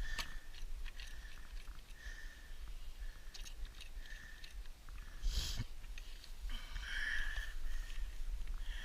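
Footsteps squeaking on very cold snow about once a second, over a low wind rumble, with a single knock about five and a half seconds in.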